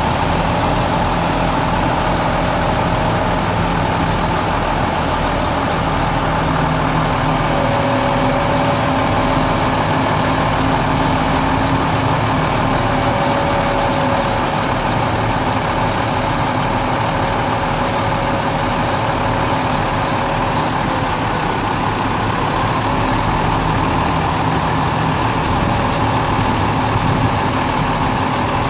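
Cummins M11 10.8-litre inline-six turbo diesel in a mixer truck idling steadily.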